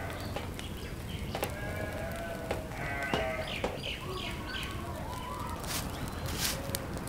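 Animals bleating several times over the crackle and rush of a large brush fire.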